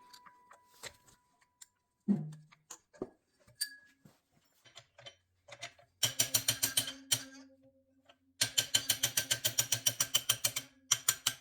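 A ratchet wrench clicking rapidly in two long runs, loosening nuts on a Porsche air-cooled flat-six engine, over a steady low hum that the mechanics call the studs singing. Before that, a few scattered knocks of tools and parts.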